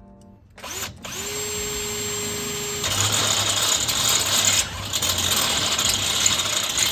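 Electric drill spinning up and running free with a steady whine, then about three seconds in the bit bites into the metal flat bar and the sound turns louder and rougher as it drills a hole.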